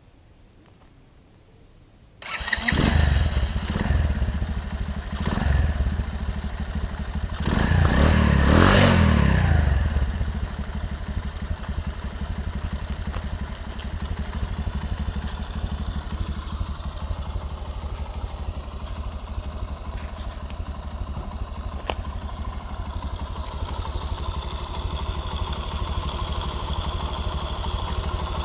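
Sachs MadAss 125's air-cooled single-cylinder four-stroke engine starting about two seconds in. It is revved three times, the last rev the longest, then settles into a steady idle.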